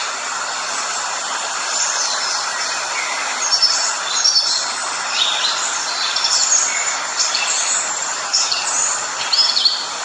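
Steady rush of a shallow river flowing over stones, with many short, high bird chirps scattered over it.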